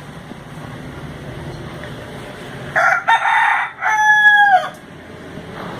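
A rooster crowing once, about two seconds long, starting about three seconds in; the last part is a held note that drops away at its end.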